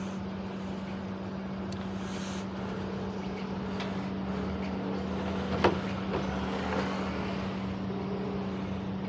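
Steady low mechanical hum over a background of even noise, with one sharp click about five and a half seconds in.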